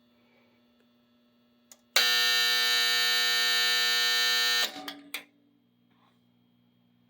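Fire alarm signal driven by a 1965 Honeywell W247B fire alarm control panel, sounding one loud, steady blast for about two and a half seconds. It starts about two seconds in, cuts off sharply with a few short rattles, and a steady electrical hum sits underneath.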